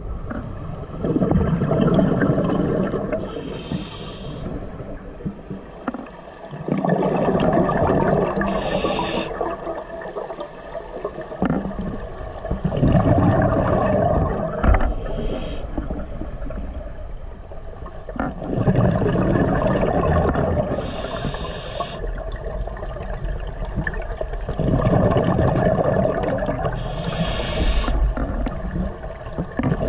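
Scuba diver breathing through a regulator underwater. A short hiss on each inhale is followed by a longer rush of exhaled bubbles, in a slow cycle about every six seconds.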